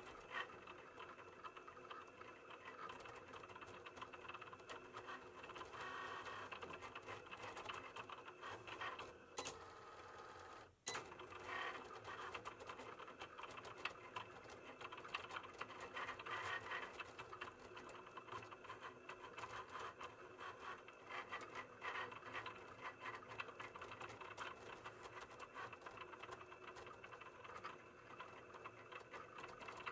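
Cricut cutting machine cutting a print-then-cut sheet: its motors whir faintly as the blade carriage travels and the mat feeds back and forth, with a brief drop in sound about eleven seconds in.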